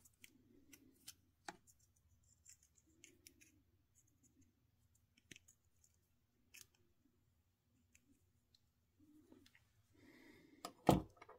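Small irregular clicks and scratches of needle-nose pliers working at the thin aluminium can of a Rubycon Black Gate capacitor as it is peeled open, with one louder knock near the end.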